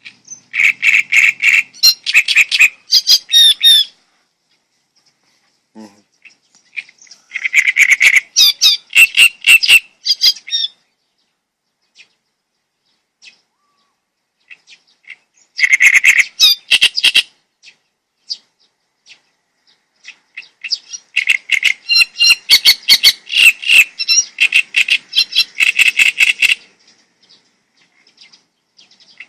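A songbird singing loudly in four bouts of rapid chirping notes, each bout lasting two to five seconds, with pauses of several seconds between them.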